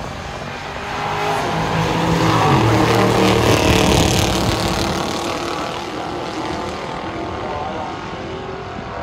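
Two stock muscle car V8s at full throttle down a drag strip, one of them a 1969 Dodge Dart GTS's 340 V8. The engine noise builds to its loudest about three to four seconds in as the cars pass close, then fades as they pull away.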